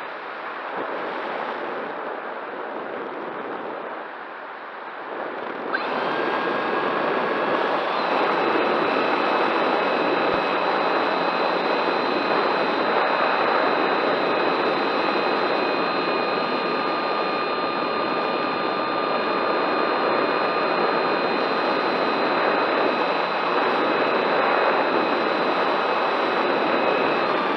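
Wind noise on the microphone, then about six seconds in a high, steady whine from a small electric motor and propeller starts, holds one pitch for some twenty seconds, and cuts off near the end.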